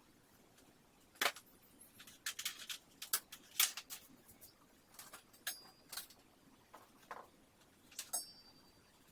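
Scattered light clicks and knocks at irregular intervals, as of small hard objects being handled; two of them, about halfway through and near the end, leave a brief high metallic ring.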